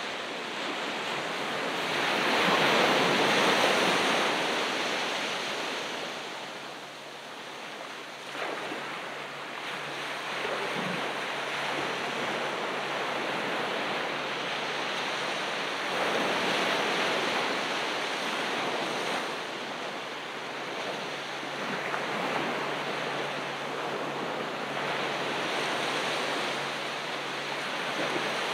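Ocean waves breaking and washing up on a sandy beach, surging in slow swells, the biggest a couple of seconds in and another about halfway through.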